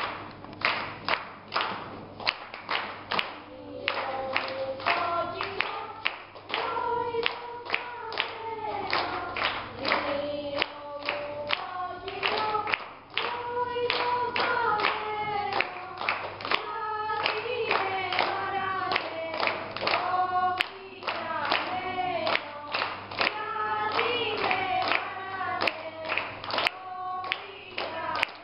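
Children's choir singing to a steady beat of hand-claps. The clapping starts on its own and the voices come in about four seconds in.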